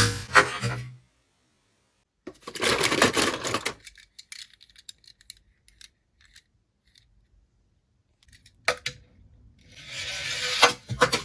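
Tomica die-cast toy car rolling and clattering on a hard surface: a rush of rolling noise about two seconds in, then scattered light metallic ticks and clicks, a sharp click, and another rolling rush near the end.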